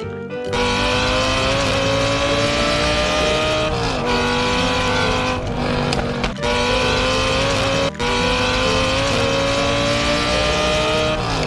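Race car engine accelerating, its pitch climbing steadily, dropping sharply about four seconds in and again just before the end, with brief cuts near six and eight seconds.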